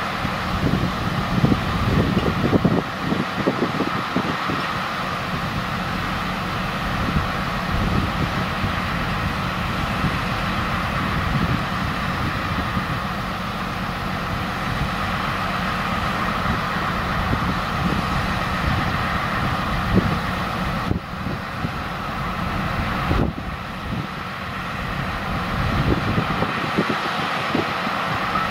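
Narrow-gauge diesel locomotive engine running steadily while the locomotive stands still.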